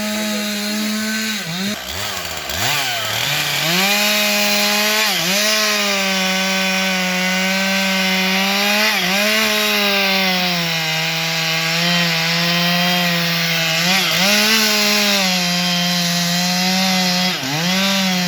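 Chainsaw running at high revs, its pitch dipping briefly and recovering several times as the chain bites into the wood.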